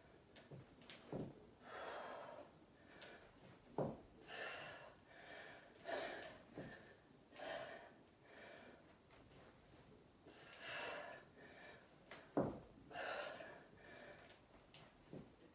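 A woman breathing hard from exertion, with forceful breaths and gasps every second or two. Three short sharp knocks cut in, the loudest of them near the end.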